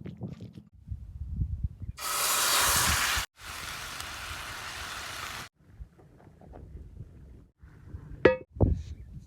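Food sizzling loudly in a hot pan over a campfire, in two spells that start and stop abruptly about two and three and a half seconds in. Near the end comes a sharp metal clink that rings briefly, followed by a thump.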